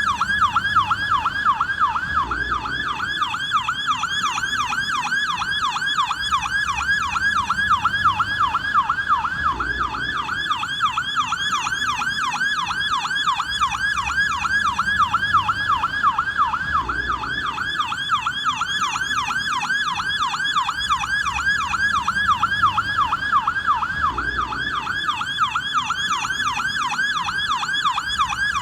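Police car siren in yelp mode: a fast, continuous up-and-down wail repeating several times a second, with a low rumble beneath it that swells about every seven seconds.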